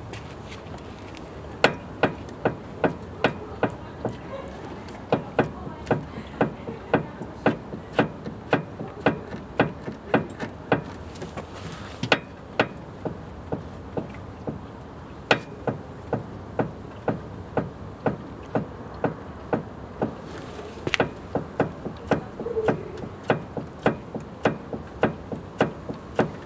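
Repeated sharp knocks from the front end of a VAZ-21074 car, coming about two to three a second in irregular runs with short pauses, over a steady background rumble. The cause of the knock is unknown to the owner.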